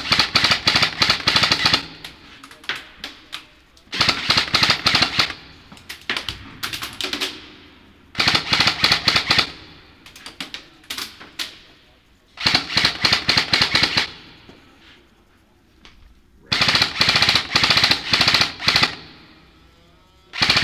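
Airsoft rifle firing on full auto: repeated bursts of rapid sharp clacks, each one to two seconds long, with a few scattered single shots between them.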